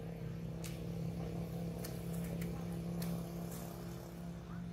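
A motor vehicle's engine running steadily at an even pitch, with several short sharp clicks over it.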